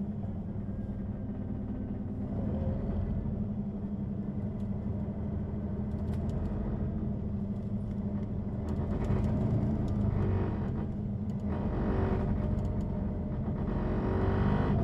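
Engine and drivetrain of a 2003 Neoplan N 4416 city bus with a ZF gearbox, running steadily under way and growing louder toward the end.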